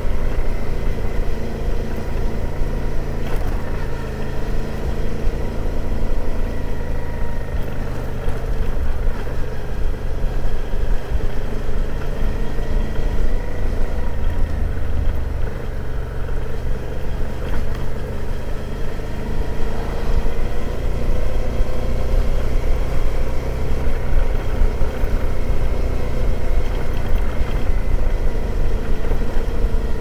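Suzuki V-Strom 650's V-twin engine running steadily while the motorcycle is ridden along the road, with a steady low rush of wind over the microphone. The engine pitch sags and rises a little about two-thirds of the way through.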